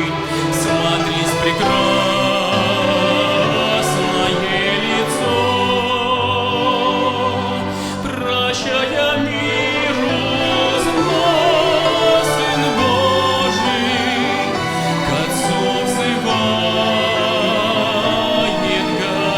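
String chamber orchestra of bowed strings playing a hymn, with sustained melody lines full of vibrato over a steady bass.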